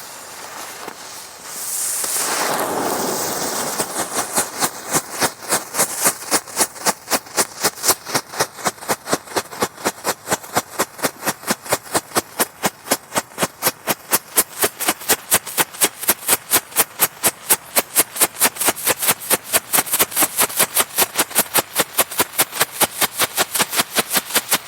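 Firework going off: a hissing flash that swells over the first few seconds, then a long run of sharp crackling pops, about five a second, keeping up steadily.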